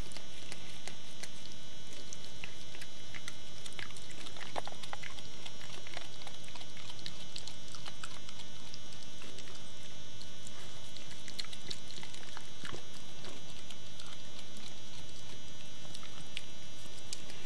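Mother dog licking her newborn puppy: soft wet licking with scattered small clicks, over a steady tape hiss.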